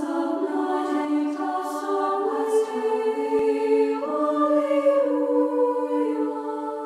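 A women's choir of Benedictine nuns singing sacred choral music in slow, held harmony, with several voices sustaining chords that change about once a second.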